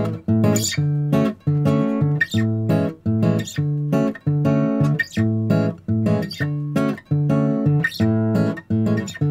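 Background music: acoustic guitar strumming chords in a steady, even rhythm.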